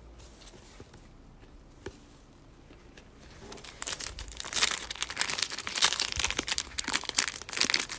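A trading card pack wrapper being crinkled and torn open by hand, a dense crackling that starts about four seconds in after a near-quiet stretch with a few faint clicks.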